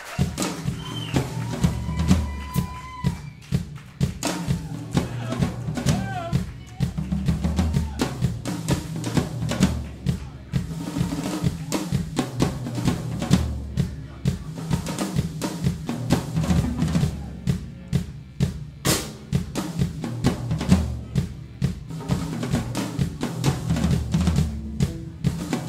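Live rock band playing an instrumental passage without vocals. The drum kit is to the fore, with dense snare and bass drum strikes over a steady electric bass line.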